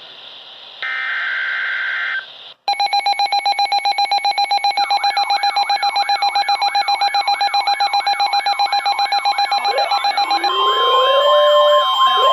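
A burst of Emergency Alert System digital data tones, a shrill screech about a second long, comes about a second in. It is followed by a loud layered electronic alarm: a rapidly pulsing tone with repeating rising chirps, joined near the end by more sweeping, siren-like tones.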